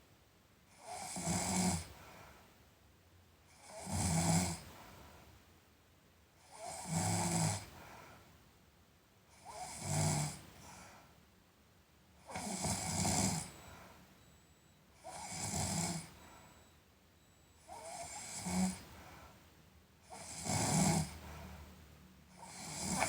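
A sleeping person snoring in a regular rhythm, about nine snores, one every two to three seconds, each lasting about a second.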